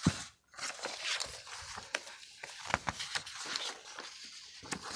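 Paper sheets on a clipboard rustling as pages are flipped over and laid back down, with small clicks and taps throughout.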